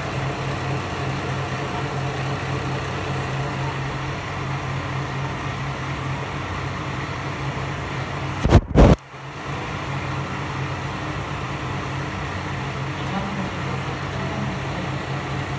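Kanto Railway diesel railcar engine idling with a steady low hum. About halfway through there is a brief loud bump and a split-second dropout.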